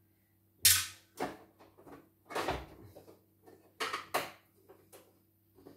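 About five sharp knocks and clacks with lighter clicks between them: hard parts of a portable computer embroidery machine being handled and set down while it is taken apart.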